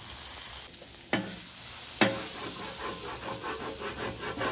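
Onions and bell peppers sizzling in butter on a Blackstone steel griddle. Two sharp knocks come about one and two seconds in. Then a metal spatula sets up a quick, rhythmic scraping, about five strokes a second, as it tosses the vegetables and lifts the fond off the griddle.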